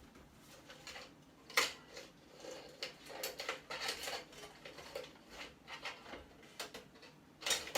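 Light metallic clinks, clicks and rattles of small metal parts and hand tools being handled while electrical equipment is taken apart for scrap, with a sharper clack about one and a half seconds in and a burst of knocks near the end.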